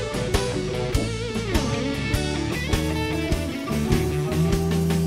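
Blues band music: an electric guitar plays a lead with bent, wavering notes over bass and a steady drumbeat.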